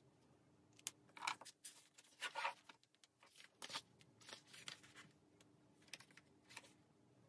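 Paper rustling as a thick textbook is handled and its pages are turned, in a string of short rustles, loudest in the first couple of seconds.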